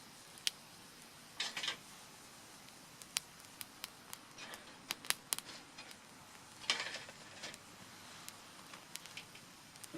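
Small wood fire in a Picogrill folding fire pit crackling, with scattered sharp pops and short rustles about a second and a half in and again near seven seconds.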